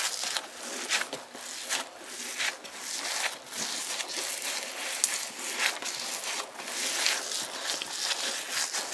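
Giant mesh stress ball, a thick rubber balloon filled with water beads, squeezed and kneaded by hand: irregular squishing, crinkling and crackling of the rubber against the mesh and fingers.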